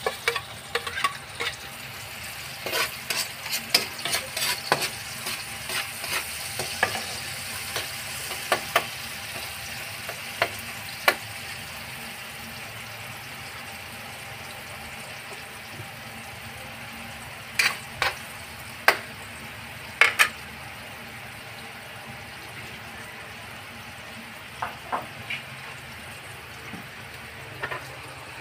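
Chopped onion and minced garlic sizzling in oil in a metal wok, a steady frying hiss. A spatula stirs and taps against the pan in scattered sharp clicks, busiest in the first dozen seconds, with a few loud clinks around eighteen and twenty seconds in.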